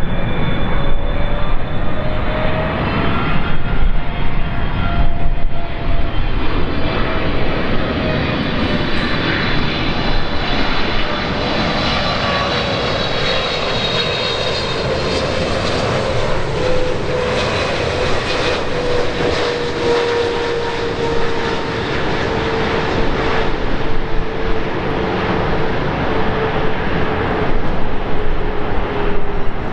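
Jet airliner engines on landing approach, a loud steady rush with an engine whine over it. The whine rises a little early in the passage, then slowly drops in pitch as the aircraft passes.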